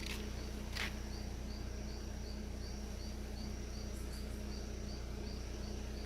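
An insect chirping steadily, about two to three short high chirps a second, over a low rural background hum. A brief rustling scrape about a second in is the loudest sound.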